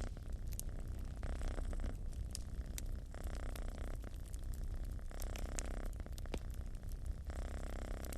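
Cat purring in a steady low rumble whose sound changes every second or so with each breath in and out, over the frequent sharp crackles and pops of a wood fire burning in a fireplace.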